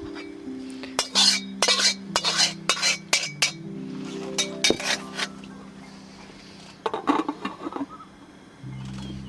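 Dishes and utensils clinking against each other: a quick run of clinks and knocks in the first few seconds, then a shorter cluster near the end.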